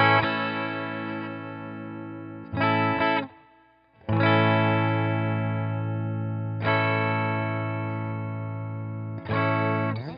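Fesley ST electric guitar through an amp on a clean tone, strumming full chords that are left to ring. There are five strums: after the short second one, about three seconds in, the strings are muted for a moment of silence.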